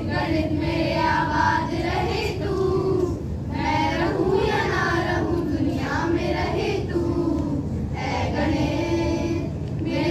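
A group of girls singing a song together in unison, in phrases of long held notes.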